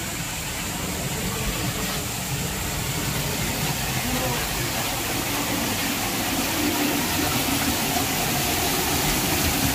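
Water pouring down a small man-made garden waterfall into a pool: a steady rushing splash that grows slowly louder.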